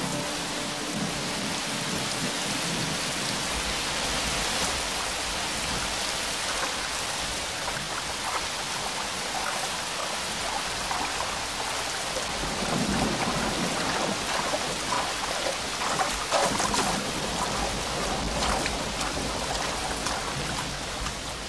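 Heavy monsoon rain pouring down on a flooded street, with a low rumble of thunder underneath. Water splashes grow busier and a little louder in the middle.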